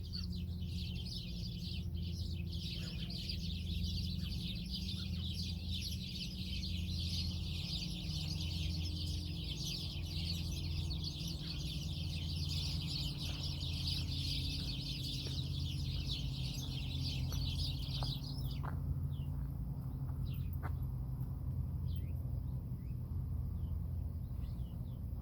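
A flock of birds chattering together in a tree, a dense, unbroken din of many high calls that stops abruptly about 18 seconds in. Only a few scattered chirps follow.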